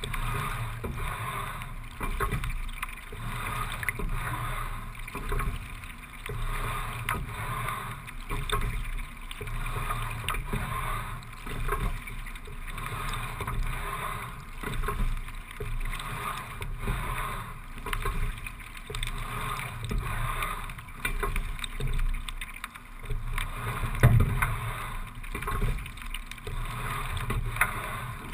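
Single racing scull under way at a steady low rate of about 17–18 strokes a minute: water running along the hull and oars, swelling and easing with each stroke every three to four seconds. A single sharp knock near the end.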